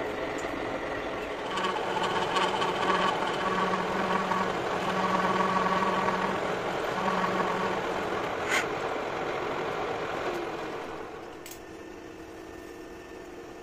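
Metal lathe running and taking a taper cut on a metal bar, the top slide fed by a hand-drill motor whose whine starts about a second and a half in and cuts out and restarts a few times. A sharp click comes near the middle, and the machine noise drops away about eleven seconds in as the lathe stops.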